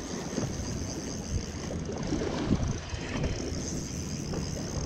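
Wind buffeting the microphone over choppy sea water sloshing by a boat's hull.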